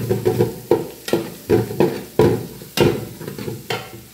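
Metal spatula scraping and stirring crushed ginger and garlic frying in oil in a large metal pan: about ten quick, irregular scrapes over a light sizzle, stopping near the end.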